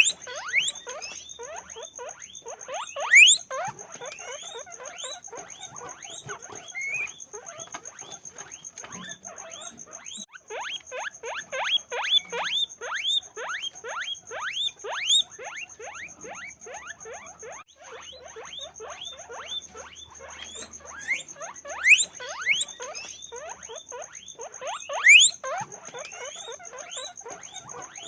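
Guinea pigs squeaking continuously: a dense run of short, rising squeaks, several a second, with a few louder ones about three seconds in and near the end.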